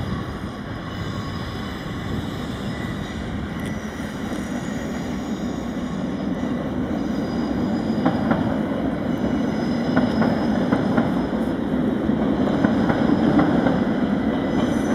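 Three coupled NS Koploper (ICM) electric multiple units running through the station. The wheels click over rail joints and points as the train draws level, and the running noise grows steadily louder.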